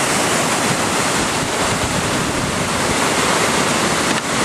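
Whitewater rushing steadily through the rapids of an artificial slalom course, a continuous even roar.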